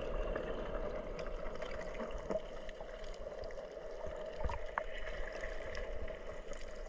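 Muffled underwater water noise heard from below the surface: a steady hiss with a few faint ticks.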